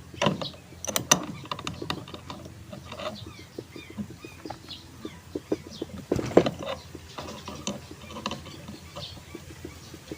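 Irregular clicks, knocks and rattles of an exhaust fan's parts being handled and fitted back together by hand, with a louder clatter about six seconds in.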